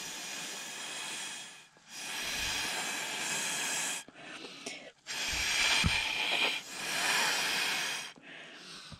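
Breath blown hard through a drinking straw to chase watered-down coffee paint across paper: four long, hissing blows of one to two seconds each, with short pauses for breath between them and a fainter fifth blow near the end.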